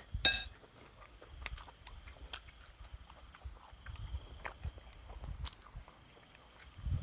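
Quiet eating sounds: chewing with scattered small clicks, the sharpest just after the start, over wind rumbling on the microphone.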